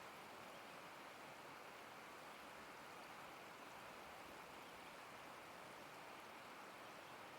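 Faint, steady rush of river water running over rapids.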